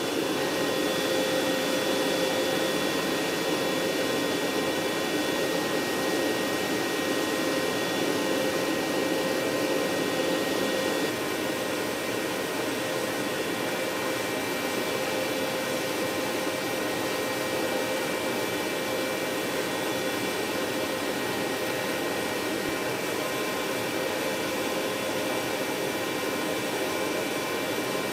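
Steady whine and air rush of an aircraft gas turbine running on the ground, with several thin high tones over a broad hiss. It gets slightly quieter about eleven seconds in.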